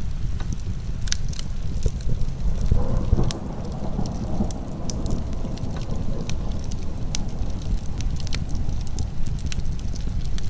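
Wood fire crackling with frequent sharp pops over a steady low rumble of heavy rain. A softer hiss of rain swells about three seconds in and eases off near the end.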